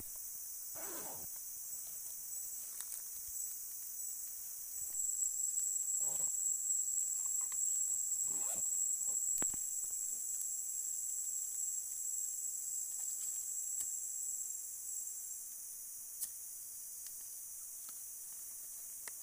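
Forest insects keep up a steady high-pitched chorus. A single shrill, steady insect tone comes in about five seconds in and stops about ten seconds later. A few faint short rustles are heard in between.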